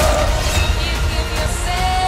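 Dramatic trailer music: held tones over a deep, steady low rumble, with a new held note coming in near the end.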